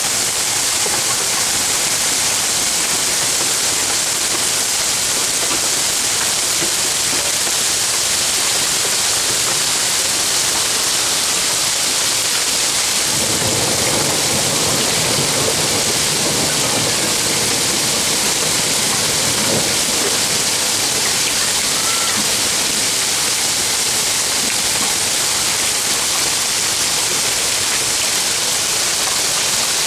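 Heavy downpour hissing steadily, with a low rumble of thunder starting about halfway through and lasting several seconds.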